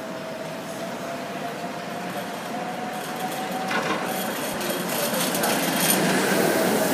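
ČKD Tatra T6 tram approaching and passing close by, its wheels running on the rails and growing steadily louder, with clicking and rattling in the middle and a rushing noise as it draws alongside.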